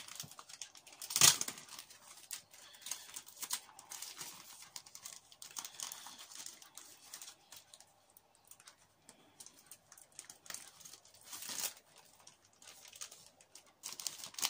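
Clear plastic packaging crinkling and rustling as it is handled and a small bag is pulled open by hand. A sharp, louder crackle comes about a second in and another near the end.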